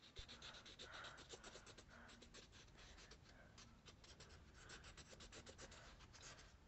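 Faint, quick scribbling strokes of a drawing tool rubbing over a coloring-book page, many short scratches in a row.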